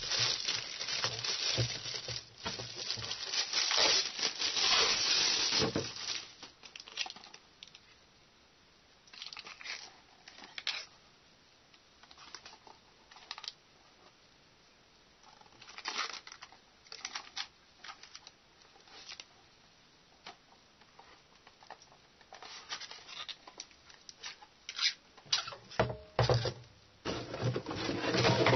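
Thin plastic bag crinkling and rustling as an external hard drive is pulled out of it, for about the first six seconds. After that, scattered light clicks and knocks from handling the drive's plastic case, busier and louder near the end.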